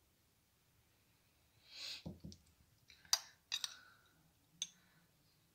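A spoon scooping filling out of a glass bowl: a soft scrape about two seconds in, then several sharp clicks of the spoon against the glass.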